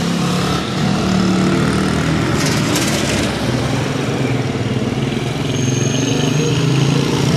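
Small motorcycle carrying two riders pulling away and riding off, its engine note rising and falling.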